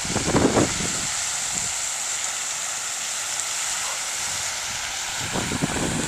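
Steady rushing hiss of floodwater, with low buffets of wind on the microphone in the first moment and again near the end.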